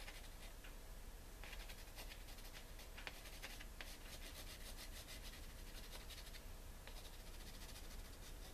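A Spectrum Noir Aquablend watercolor pencil scratching faintly across watercolor paper in short, irregular shading strokes.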